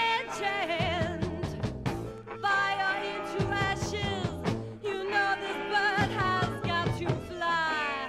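Heavy psych blues-rock recording: a wavering lead line with strong vibrato and sliding pitch over the full band, with drum hits. Near the end the lead slides downward.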